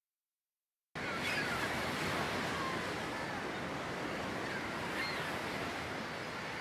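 Beach ambience: steady surf of ocean waves washing in, with a few faint high calls over it. It fades in about a second in.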